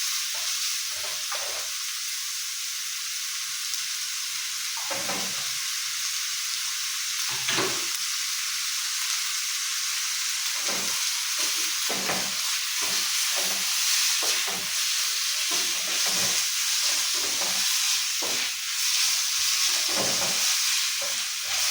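Chopped onions frying in hot oil in a pan, with a steady sizzle and short irregular scrapes and knocks as they are stirred.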